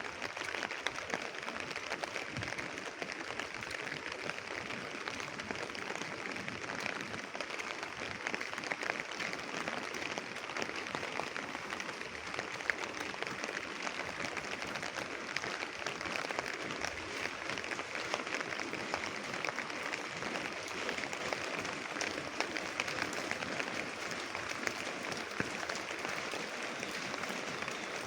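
Light rain falling, a steady patter of many small drops.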